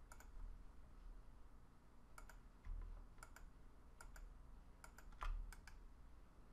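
Faint clicks of a computer mouse, about half a dozen, each a quick press-and-release double tick, with a couple of soft low thumps between them.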